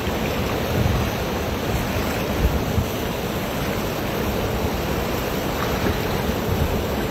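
Steady rush of river water around people wading in the current, with low wind buffeting on the phone microphone.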